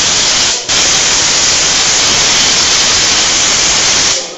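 Loud, steady hiss of a jet of air, in long bursts that break off briefly about half a second in and again near the end.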